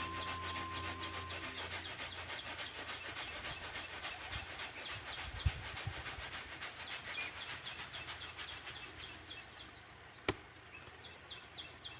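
Paddy grain poured slowly from a woven winnowing basket, falling onto the ground in a dense patter and hiss that fades away after about nine seconds as the basket empties. A single sharp click comes about ten seconds in.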